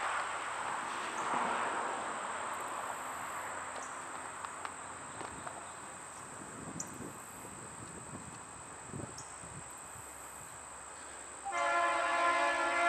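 Air horn of a Norfolk Southern diesel freight locomotive, starting suddenly about eleven and a half seconds in as a chord of several steady tones held to the end. Before it there is only faint outdoor background.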